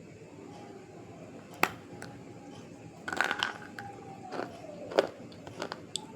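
Someone biting and crunching a brittle white crunchy substance: a sharp crunch about a second and a half in, a quick cluster of crunches a little after 3 s, and another sharp crunch near 5 s.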